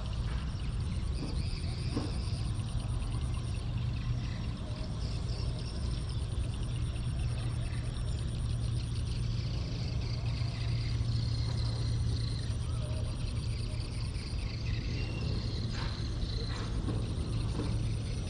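A steady low rumble throughout, with a faint high hiss above it and a few soft clicks.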